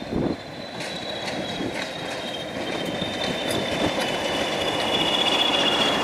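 English Electric Class 20 diesel locomotive No. 20020 and its coaches rolling slowly past, with a steady high-pitched wheel squeal that slowly falls in pitch and sharp clicks as the wheels cross the pointwork. The rumble grows louder as the locomotive draws close.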